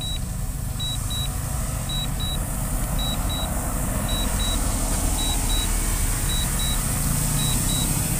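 A DJI drone controller beeping in pairs of short high beeps, about one pair a second: the alert that the drone is auto-landing. The beeps sound over a steady hum of the drone's propellers as it descends close by.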